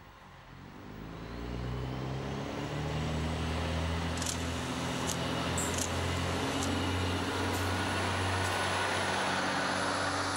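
A DWA-built lightweight diesel railcar (class 672) runs through a station. Its engine hum builds over the first two seconds and then holds steady, with a few sharp clicks in the middle of the pass.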